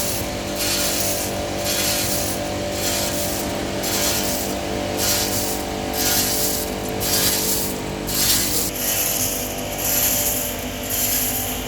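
A URM-75 continuous nut roasting machine running: a steady motor hum under a rasping hiss that pulses regularly, several times a second. The hiss shifts to a different, higher pattern about three-quarters of the way through.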